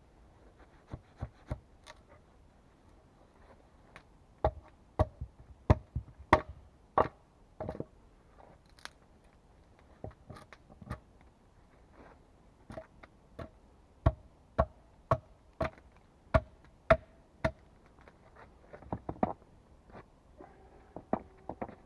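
A tool striking wood in a series of sharp knocks, irregularly spaced and often in quick pairs or threes, some leaving a brief faint ring.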